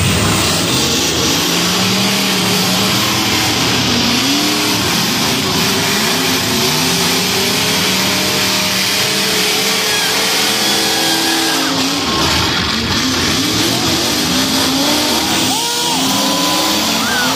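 Several demolition derby cars' engines revving hard and running as they push and ram each other, with music playing over them.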